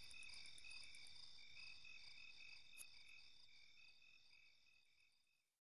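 Faint night ambience of crickets chirping, a steady rapid pulsing that fades out to silence about five seconds in.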